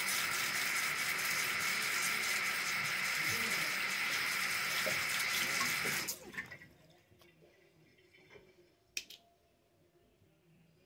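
Bathroom sink tap running in a steady rush, shut off about six seconds in. A sharp click follows a few seconds later.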